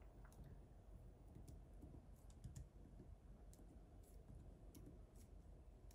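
Near silence: room tone with faint, scattered, irregular clicks.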